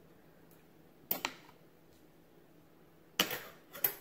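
Short clicks of a fork against glass and china dishes while eating: one about a second in, then two close together near the end.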